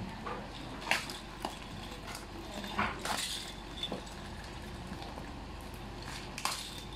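Crinkling and rustling of plastic wrapping being pulled at on a toy drum set, with scattered sharp crackles about a second in, around three seconds and near the end.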